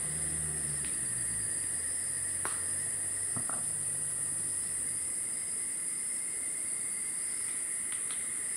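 Steady high-pitched insect chorus from the rainforest, an unbroken shrill drone. A faint low hum runs through the first half, with a couple of soft clicks.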